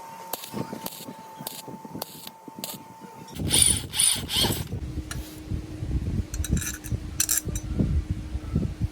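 Hand tools and metal parts being worked: a run of separate clicks and knocks, growing louder and busier about three seconds in.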